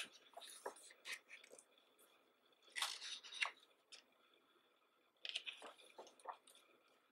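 Paper pages of a thick hardcover photo book being turned by hand: faint, short paper rustles and swishes in several separate bunches.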